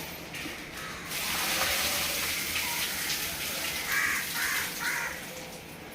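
Water rushing and splashing in a fish tank: a steady gush starts about a second in and runs for about four seconds.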